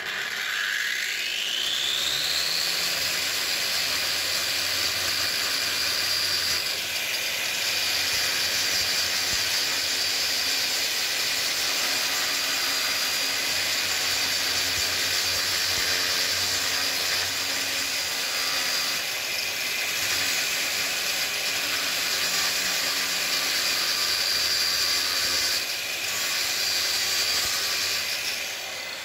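Angle grinder with a 6 mm thick grinding wheel spinning up with a rising whine, then running steadily under load as it grinds material out of a thick steel blade held in a vise. The pitch and tone shift slightly a few times as the wheel bites, and it eases off near the end.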